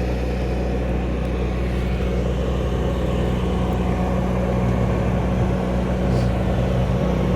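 A motor running steadily nearby: a constant low hum that does not change.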